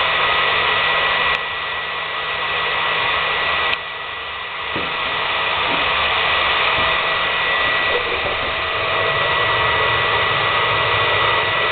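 Hair dryer blowing steadily through a metal tube extension into a wood stove to force air into the fire: a loud, even rush of air with a thin motor whine. About a second and a half in and again nearly four seconds in there is a click and the sound drops, then it gradually builds back to full strength.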